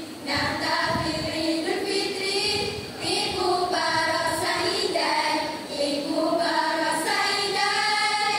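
A schoolgirls' kalam jamaie choral-speaking group voicing an Arabic piece together in sung, melodic phrases. It cuts off near the end.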